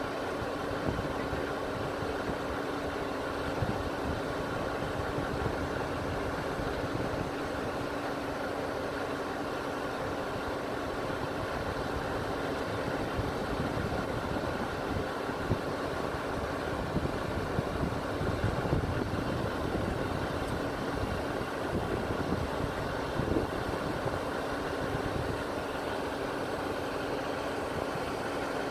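Fire engines' diesel engines idling steadily, a constant low drone with a held tone.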